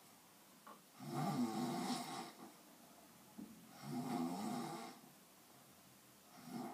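Snoring: two long snores about three seconds apart, each lasting a little over a second, with a third starting near the end and faint short breaths between them.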